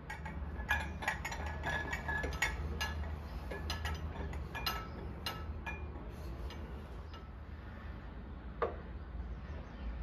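Ceramic and glass mugs clinking and knocking on a wooden mug tree as it is set on a shelf. A quick run of light clinks, some ringing briefly, fills the first five seconds or so, and one more knock comes near the end. A low steady hum runs underneath.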